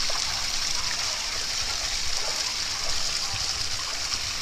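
Small waterfall splashing steadily over stacked stones into a pond, with several dogs wading and splashing in the water.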